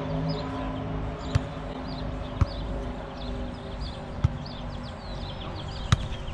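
A volleyball rally: four sharp hand-on-ball contacts about one to two seconds apart, the last a jump hit at the net. Small birds chirp throughout, and a low engine hum fades away during the first couple of seconds.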